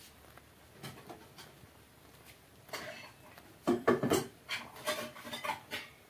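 A plastic tea strainer knocking and scraping against an aluminium pot of boiling tea as it is dipped in and lifted out, with a few light clicks at first and a busy run of knocks and scrapes from about halfway through.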